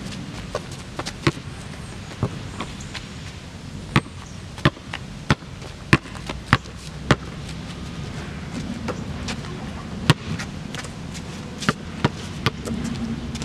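A basketball being dribbled on a paved court: a run of sharp bounces at uneven spacing, thinning out a little past the middle and picking up again near the end.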